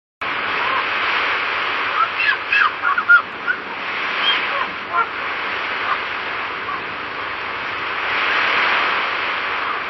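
Sea waves washing on a shore as a steady rush that swells again near the end, with a flurry of short bird calls between about two and five seconds in.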